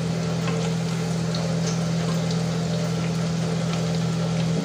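Soya chunks deep-frying in hot oil in a kadai: a steady sizzle with a few light clicks of the metal skimmer. A steady low hum runs underneath and cuts off suddenly near the end.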